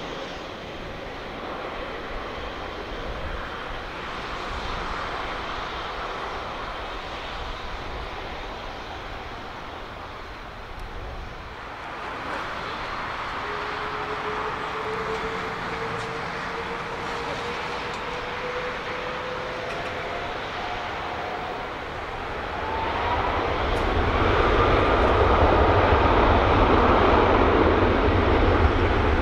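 Boeing 777-200ER's Rolls-Royce Trent 892 jet engines spooling up for takeoff: a whine climbs steadily in pitch over about ten seconds, and the engine noise grows much louder about three quarters of the way through as takeoff thrust comes on.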